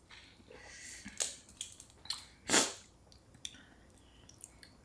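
Close-miked eating at a seafood boil: chewing with small clicks and smacks, and one short, loud hiss-like burst about two and a half seconds in.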